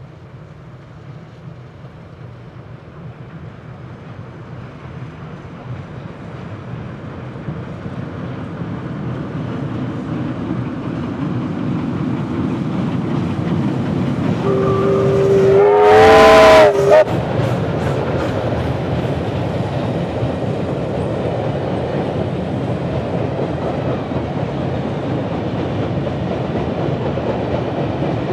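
Beyer Garratt steam locomotive 6029 working a passenger train, growing steadily louder as it approaches. About fifteen seconds in it sounds its chime whistle, several tones at once, for about two seconds; this is the loudest moment. The carriages then roll past with a steady rumble and clatter of wheels on the rails.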